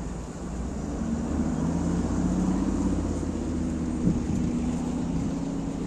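A motor vehicle's engine hum that grows louder about a second in and then holds steady.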